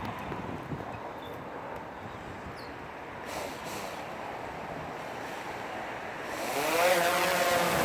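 Steady background noise, then about six and a half seconds in the DJI Phantom 3 Advanced quadcopter's four motors start: a rising whine as the propellers spin up, settling into a steady drone.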